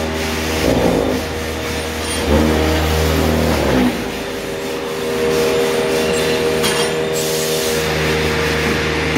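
Montana concrete paver-moulding machine running with a steady, many-toned mechanical hum. The low hum swells for about a second and a half a couple of seconds in, dips briefly, then holds steady.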